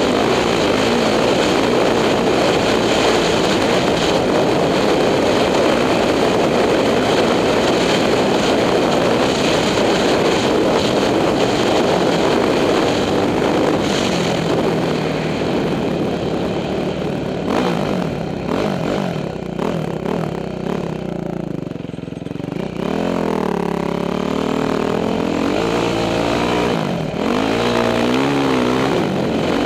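Single-cylinder four-stroke engine of a 2006 Yamaha YZ450F dirt bike running hard under load through sand. Later the throttle is rolled on and off, so the engine note rises and falls in repeated swells, with a short drop partway through.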